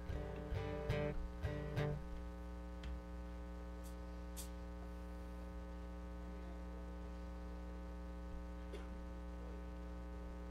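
Acoustic guitar strummed a few chords, stopping about two seconds in, after which only a steady electrical mains hum remains.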